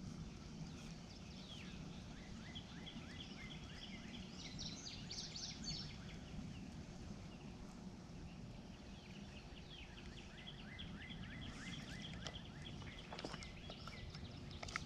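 Faint outdoor ambience with birds calling: long runs of short, quick downward chirps over a low steady background hum.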